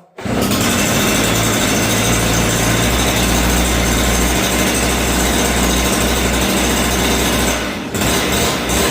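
STIHL two-stroke petrol concrete cut-off saw engine catching at the start and running loud and steady at fast idle, its throttle locked in the starting position after the choke was knocked off. Near the end it dips briefly, then picks up again.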